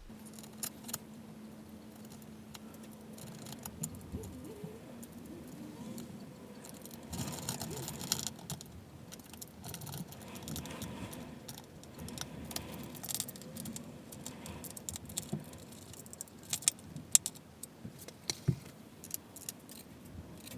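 Small metal parts clinking and clicking as skateboard hardware, trucks and tools are handled during assembly, with a few sharper knocks near the end.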